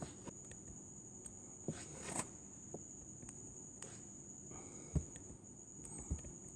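Faint room tone with a steady high-pitched electrical whine, broken by a few short taps of a stylus on a tablet screen. The loudest tap comes about five seconds in.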